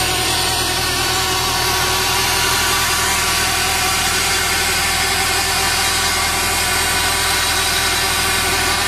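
Kirpy asparagus harvester running steadily as it works the ridge: an even engine and machinery drone with a steady mix of tones, unchanged throughout.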